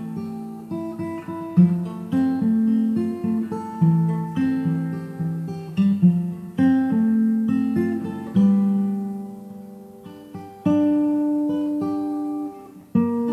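Background music: an acoustic guitar playing a run of plucked notes, each one starting sharply and fading away.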